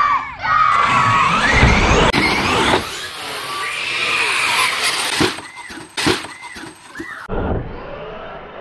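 Electric RC monster truck at full throttle: motor whine and tyres rushing as it charges up a plywood ramp, the whine rising and falling while it is airborne. Then several hard knocks as it lands and tumbles, with children shouting.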